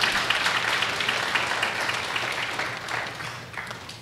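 Congregation applauding, the clapping dying away near the end.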